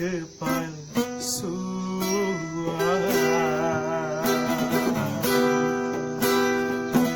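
A man singing long held, wavering notes over a strummed acoustic guitar.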